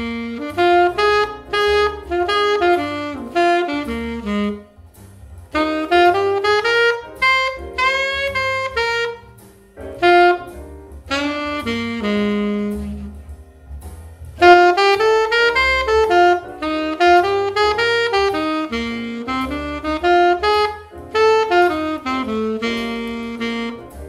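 Solo jazz saxophone improvising a blues chorus in short, quick melodic phrases broken by brief pauses. The lines use diatonic non-chord tones (the 2nd, 4th and 6th) as passing and approach notes around the chord tones.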